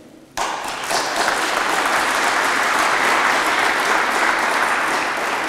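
Audience applauding, starting suddenly about half a second in and holding steady.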